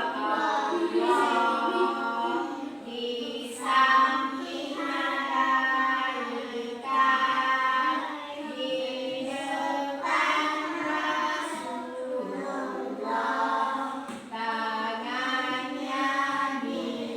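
A group of children singing together, with no instruments to be seen in the picture of the sound.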